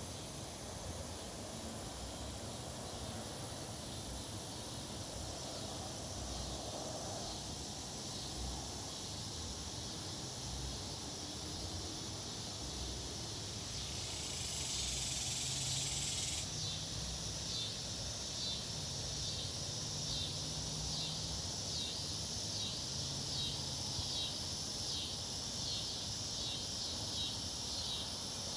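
A chorus of summer insects keeps up a steady high-pitched trilling. A louder buzz swells for a couple of seconds about halfway through, then a quick, regular pulsing chirp runs on near the end.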